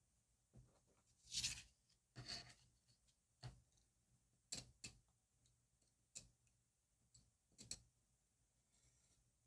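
Journal-decorating sounds of stickers and paper being handled: a series of short, quiet rustles, taps and clicks, the longest and loudest about a second and a half in.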